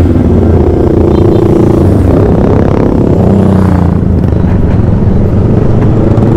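Motor scooter engine running while riding, its note shifting in pitch, over a heavy low rumble of road and wind noise.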